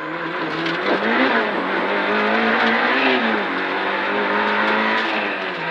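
Rally car engine heard from inside the cabin at speed, its pitch rising and falling twice as it pulls through the gears, then settling to a steady lower note near the end.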